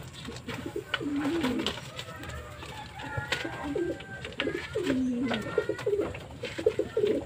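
Racing pigeons cooing repeatedly in a bamboo loft, a string of low, rolling coos one after another.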